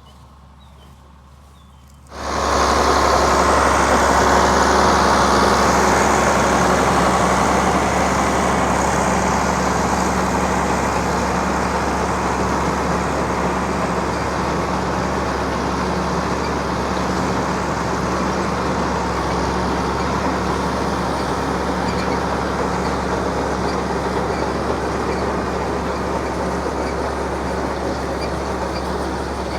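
Tractor running steadily and loud, with a dense even mechanical noise and a low drone. It comes in suddenly about two seconds in, after a quiet stretch.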